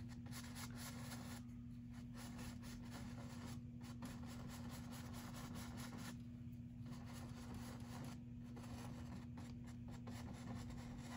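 Paintbrush bristles scrubbing and brushing over stretched canvas, blending acrylic paint with light, repeated strokes. A steady low hum runs underneath.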